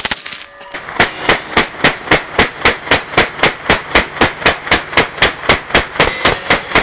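A full-auto AR-style rifle burst ends, and after a short gap the burst is heard again slowed down: evenly spaced, dull, lower-pitched shots, about four a second.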